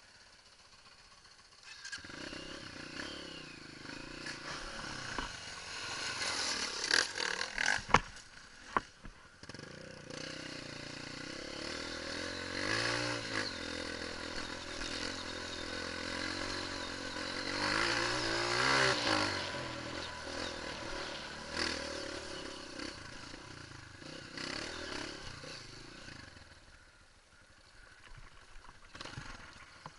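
Honda CRF dirt bike's single-cylinder engine running as it is ridden over a rocky trail. It picks up a couple of seconds in and revs up twice, about a third and two-thirds of the way through. A few sharp knocks and clatter come about a quarter of the way in, and the engine sound drops away near the end.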